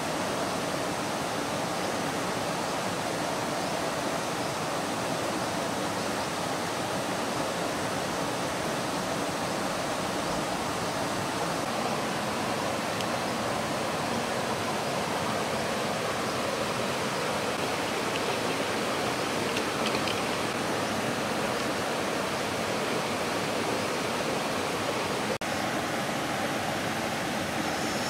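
Steady rushing of a stream flowing over rocks, an even hiss with no breaks.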